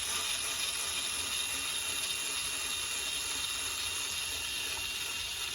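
Power driver running steadily with a torx bit, backing out a screw from the cover of an Echo PB-755T backpack blower: an even, high-pitched whir and hiss at a constant level.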